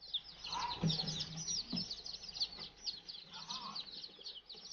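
A brood of young chicks peeping nonstop: many short, high, falling cheeps overlapping. A couple of soft knocks come about a second and two seconds in as the plastic crate is handled.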